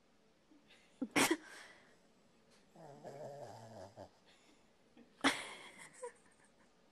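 Pembroke Welsh Corgi vocalizing: two short sharp barks about four seconds apart, with a low grumble in between.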